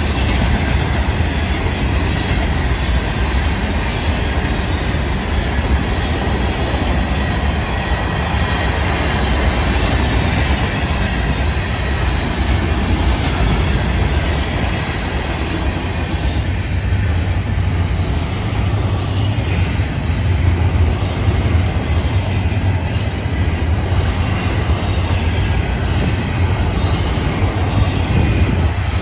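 Freight train passing close by: the steady rumble of wheels on rail as rock hopper cars and then double-stack intermodal well cars roll over the crossing. A faint high squeal from the wheels comes through in the first half, and there is scattered clicking in the second half.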